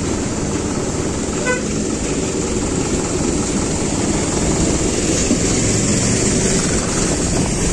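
Engine and road noise with wind on the microphone as a motorcycle rides close past a concrete mixer truck, and one short horn toot about a second and a half in.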